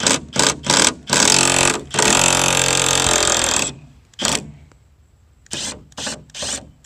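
Cordless stubby impact gun with a 10 mm deep socket, loosening and backing out spoiler bolts: a few short trigger blips, then two longer runs of about one and nearly two seconds, then three or four more short blips near the end.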